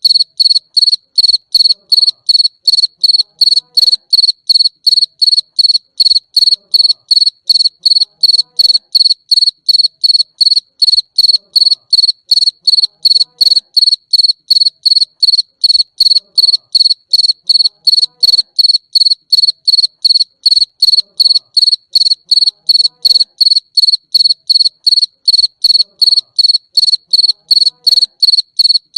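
Cricket chirping: short, high-pitched chirps in an even, unbroken rhythm of about three a second.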